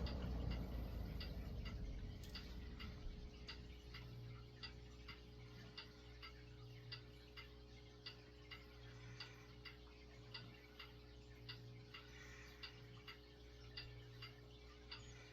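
A 1970s Galaxy Turbo Stream 20-inch box fan's rush of air dies away as the blades coast down after being switched off. What is left is a faint steady hum and a light, even ticking, about two ticks a second.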